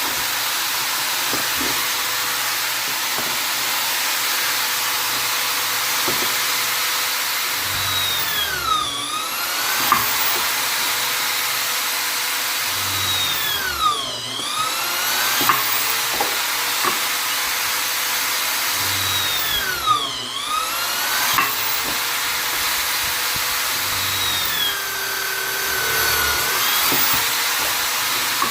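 Vonder electric drill/driver running continuously with a steady motor whine. Its speed dips and climbs back three times, roughly every five or six seconds, with a longer drop in pitch near the end.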